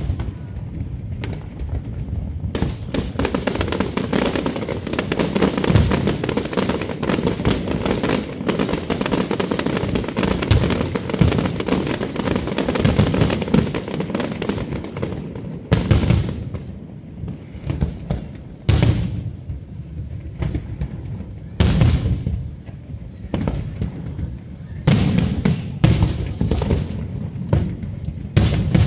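Fireworks display: aerial shells bursting in quick succession with dense crackling through the first half, then single booms every few seconds.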